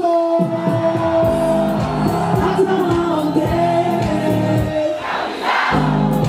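Live Bongo Flava performance through a PA: a male singer holds a long note over the backing track, then sings on. About five seconds in the beat drops out briefly under a swell of crowd cheering before the music comes back in.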